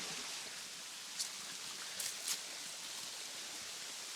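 Steady rush of flowing river water over rock, with a few faint brief clicks about one and two seconds in.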